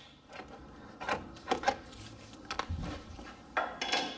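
Scattered light metal clinks and rubbing as a loosened long steel caliper retaining bolt and a cordless impact ratchet are handled and drawn away from the brake caliper, a few separate knocks spread through, with a slightly longer rustle near the end.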